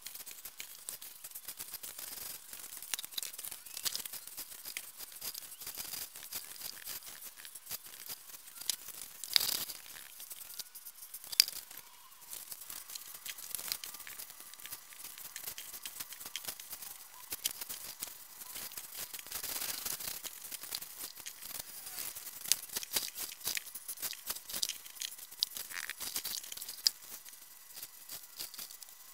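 Gloved hands packing and pressing a damp, gritty cement-and-perlite mix into a dome over a plastic-wrapped ball: irregular crunching and scraping with scattered clicks.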